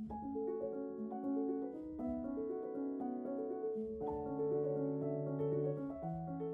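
Instrumental background music: a slow melody of piano notes, each held and overlapping the next.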